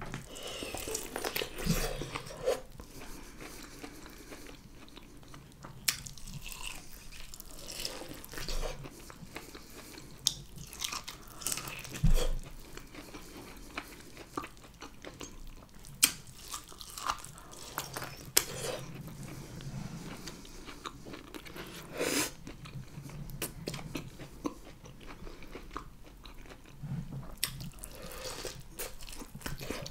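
Biting and chewing corn on the cob coated in butter sauce, close to the microphone: irregular crunches and mouth sounds as kernels are bitten off the cob, the sharpest around twelve and sixteen seconds in.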